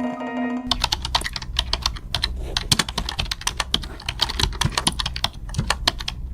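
Fast typing on a computer keyboard: a rapid, uneven run of key clicks that starts about a second in.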